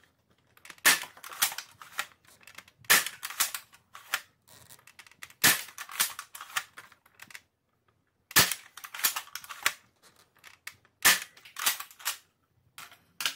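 Spring-powered Nerf Longshot blaster with a Jet Blaster Omni Kit firing foam darts through a chronograph: five sharp shots about two and a half to three seconds apart. Each shot comes with a quick clatter of plastic clicks as the bolt is cycled to re-prime the spring.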